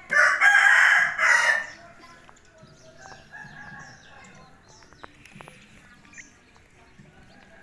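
A rooster crows loudly once, in two parts lasting under two seconds. Faint high chirps and small scuffling clicks follow.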